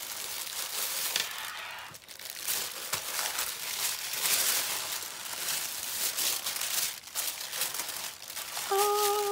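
Tissue paper rustling and crinkling in irregular bursts as it is pulled out of a fabric tote bag and unfolded from around a shrink-wrapped box. A short pitched vocal sound comes in near the end.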